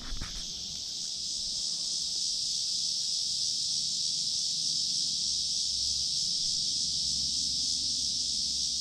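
Steady, high-pitched drone of an insect chorus in the riverside woods, unbroken throughout and swelling slightly in the first second or so.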